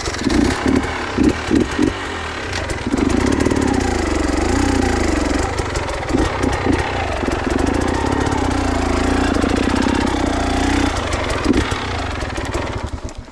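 KTM enduro motorcycle engine running just after being started, blipped several times and then revved up and down, cutting out about thirteen seconds in.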